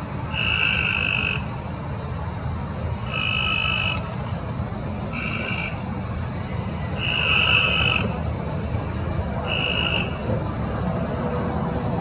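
A frog calling five times, each call lasting about half a second to a second and coming every two to two and a half seconds, over a steady high-pitched hum.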